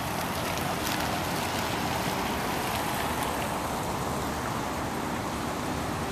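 Steady hiss of vehicle tyres on wet pavement.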